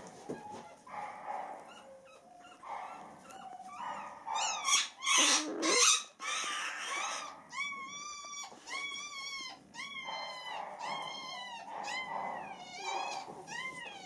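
Week-old beagle puppies squealing and whimpering: short, high, arching cries, loudest in a cluster about halfway through, then a regular run of similar squeaks about two a second.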